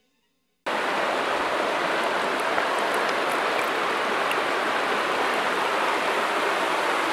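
Steady, even rushing noise like running water, starting abruptly after a moment of silence.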